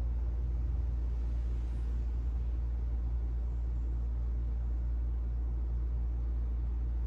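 Steady low hum, unchanging, with no other sound standing out.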